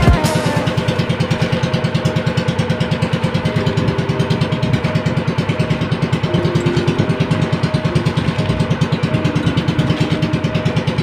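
Outrigger boat's engine running steadily under way, its firing pulses coming fast and even.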